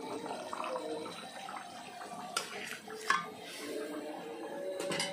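Curry simmering and bubbling in a large aluminium pot, with two sharp clinks of a utensil against the metal pot, about two and a half and three seconds in.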